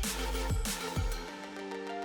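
Background electronic music: deep bass hits that drop in pitch, then the beat cuts out about a second and a half in, leaving held synth chords.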